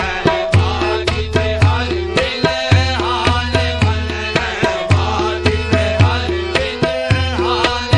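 Qawwali music: a tabla beat of low bass strokes and sharp strikes under a melody of held notes and lines that glide in pitch.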